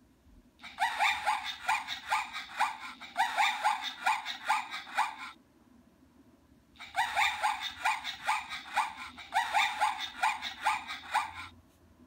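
Recorded zebra call played twice through the small speaker of a children's animal-sound card reader. Each time it is a quick run of high, yelping barks, about three a second, lasting about four and a half seconds.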